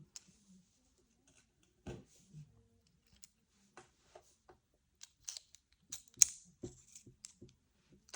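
Small sharp clicks and taps of titanium pen parts being handled and fitted together, scattered at first and busier from about five seconds in, the loudest a sharp click a little past six seconds.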